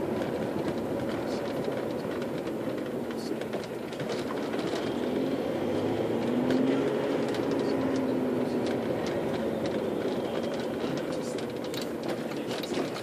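Cabin noise of a moving Audi A4 Avant TDI: tyre and turbodiesel engine noise, with small clicks and rattles throughout. The engine note rises and falls faintly in the middle.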